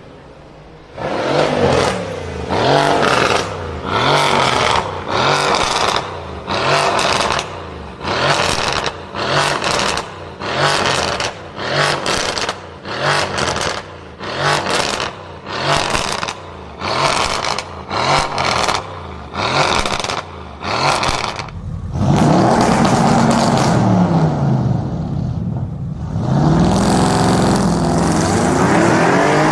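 Car engine revved in short, sharp blips, about one a second, each rising in pitch, with exhaust crackle. About twenty seconds in it changes to longer, sustained high revs, the pitch rising and falling.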